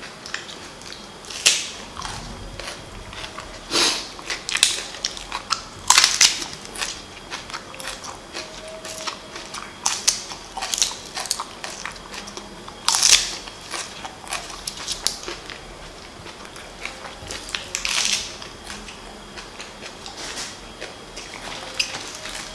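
Crunchy bites and chewing of raw green onion leaves and stalks, in sharp, irregular crunches about one to two seconds apart.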